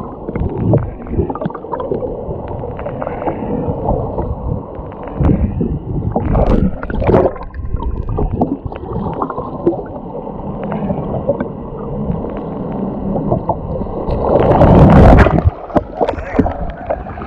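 Muffled water gurgling and knocking picked up by a camera held underwater beside the boat, as a hooked albacore tuna is brought up on the line. About fifteen seconds in comes a loud splash as the tuna thrashes at the surface by the hull.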